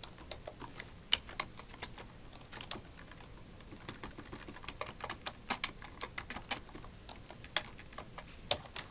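Typing on a computer keyboard: irregular key clicks, sparse at first and quicker from about four seconds in.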